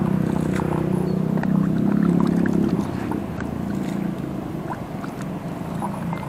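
A motor engine running steadily, fading away after about three seconds.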